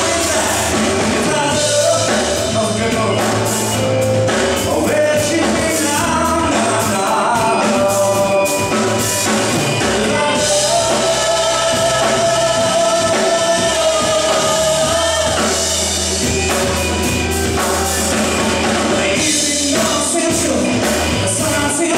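Rock band playing live: a drum kit with crashing cymbals, electric guitar and a male singer.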